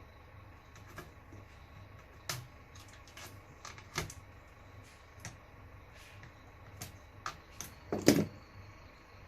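Scattered clicks and knocks of parts being handled and pulled off while an Apple eMac computer is dismantled, with a louder, longer clatter about eight seconds in.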